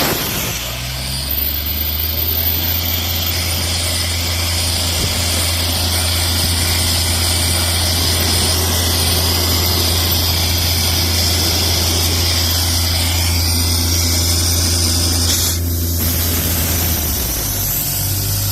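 Isuzu three-cylinder diesel engine of an Airman PDS90S portable air compressor running at a steady speed, with a high hiss over it. The sound shifts near the end.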